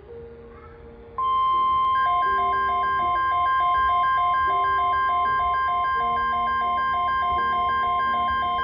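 NOAA Weather Radio warning alarm tone: a loud steady single-pitch tone near 1 kHz that starts about a second in, with a quieter rapid beeping and lower shifting tones underneath. It is the alert that sounds ahead of a tornado watch broadcast.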